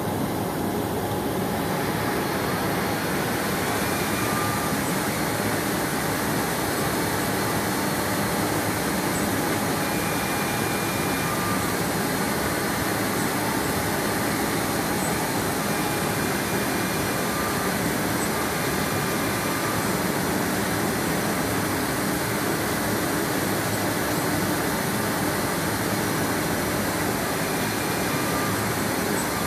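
CNC router spindle running steadily as it cuts an aluminum composite panel, a continuous even machining noise.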